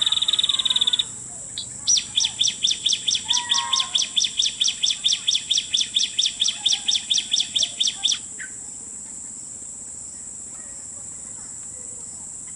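Prenjak (prinia) calls used as a trapping lure: a buzzy trill for about the first second, then after a short gap a fast run of sharp repeated notes, about five a second, that stops about eight seconds in. A steady high insect drone runs underneath throughout.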